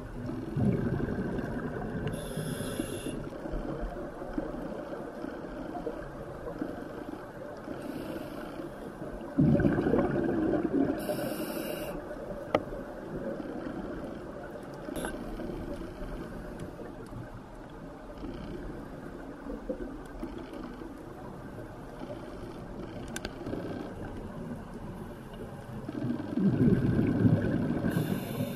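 Scuba regulator breathing underwater: three slow, rumbling exhalations of bubbles, with short hisses of inhalation through the regulator between them.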